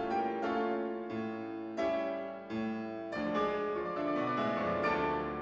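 Background music: slow piano chords, each struck and left to ring before the next.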